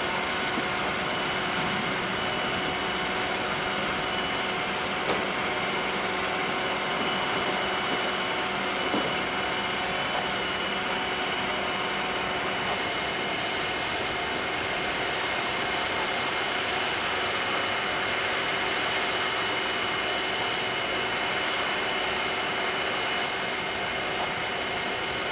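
Steady vehicle engine and traffic noise, an even drone with a few constant humming tones.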